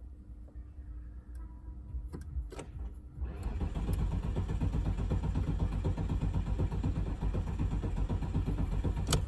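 Audi A6 C5 2.5 TDI V6 diesel being cranked on the starter for about six seconds, beginning about three seconds in and cutting off sharply near the end. This is the first start attempt after an injector replacement, and the engine does not keep running.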